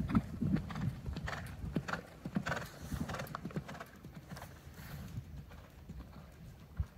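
A horse's hooves cantering on a sand arena, a steady run of hoofbeats that is louder at first and fades after about four seconds as the horse moves away.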